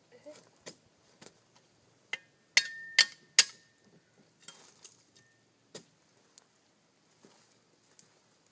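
Scattered clinks and knocks of hard objects being handled. The three loudest come in quick succession about two and a half seconds in, with a short ringing tone after them.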